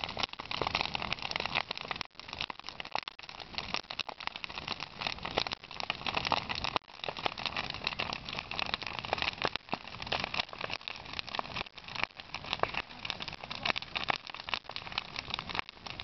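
Large wood bonfire burning, with dense, continuous crackling and popping.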